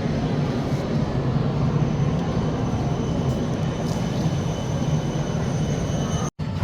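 Steady low rumble and hiss of a moving vehicle, broken by a brief drop-out near the end.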